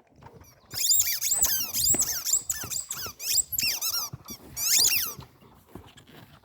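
Rubber squeaky dog toys squeaked rapidly over and over, each squeak a short high-pitched rise-and-fall, in dense runs from about a second in until it stops near the end.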